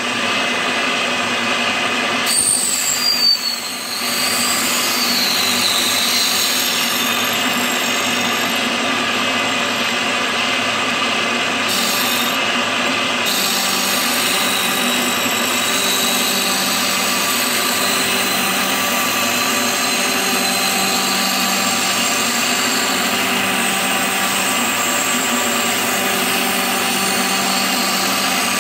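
CNC milling machine's end mill cutting a pocket in a cast iron block: steady spindle and cutting noise, with a brief wavering high whine about three seconds in.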